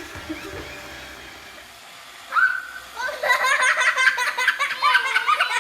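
Low background hum for the first two seconds, then a short vocal sound, then from about three seconds in people laughing in quick repeated bursts.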